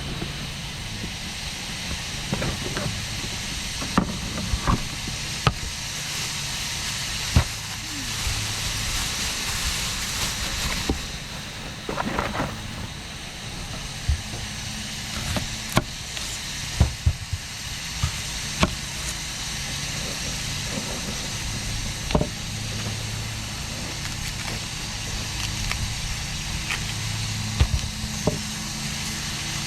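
Food sizzling in a frying pan, a steady hiss, with scattered clicks and knocks of utensils against the pan.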